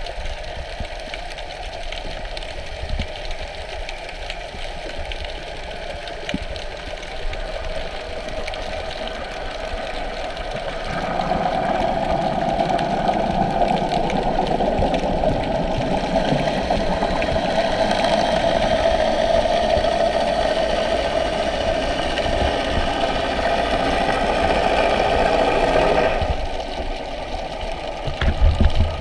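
Motor heard through the water: a steady mechanical whirr that grows louder about eleven seconds in and drops back near the end.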